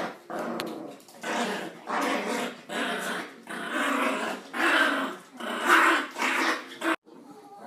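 Two pet dogs fighting, growling in repeated bursts about once a second; the sound cuts off suddenly near the end.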